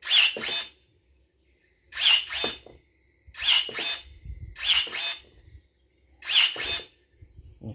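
20 V brushless cordless pruning shears snipping a thin branch into short pieces: five quick cuts, each a short burst from the motor and blade closing through the wood, about one every one and a half seconds.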